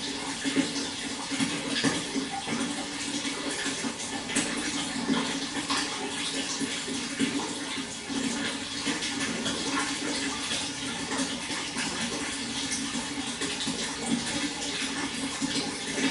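Flowing water: a steady rush with many small splashes and gurgles.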